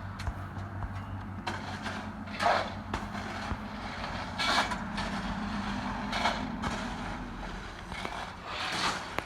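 A machine engine running steadily at a low hum, with four short, louder, noisy surges about two seconds apart.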